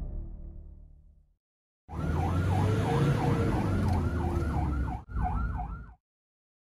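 Ambulance siren in fast yelp mode, sweeping up and down about three times a second over engine and road rumble, heard from inside the vehicle. It breaks off briefly about five seconds in and then cuts off suddenly.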